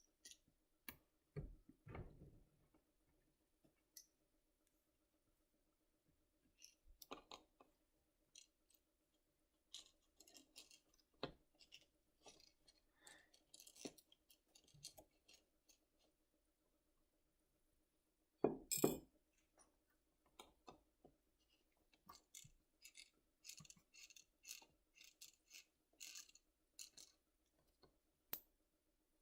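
Sparse faint clicks and light taps of a small screwdriver working on the tiny screws that hold a laptop's LCD panel, with small clinks of hard parts. One louder knock comes about two-thirds of the way through.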